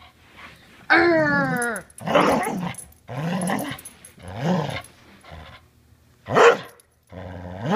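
Border collie growling and grumbling with a tennis ball held in its mouth, a string of about five 'talking' sounds: a long falling call about a second in, three rough growly grumbles, then a short sharp yip near the end. It is the protest grumbling of a dog refusing to give up its ball.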